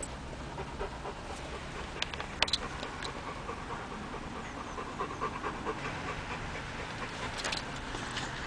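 Golden retriever panting steadily inside a car, with two sharp clicks about two and two and a half seconds in and a few fainter ticks near the end.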